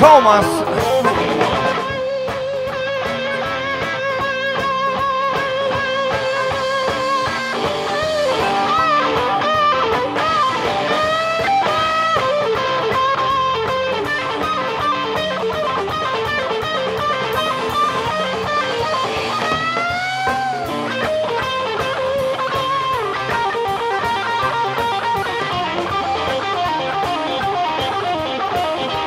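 Live blues band playing an instrumental passage: electric guitar, bass and drums, with an amplified harmonica played into a handheld microphone. Held notes waver, and several notes are bent upward.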